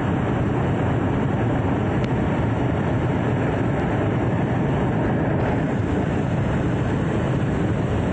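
Hot-air balloon propane burner firing steadily.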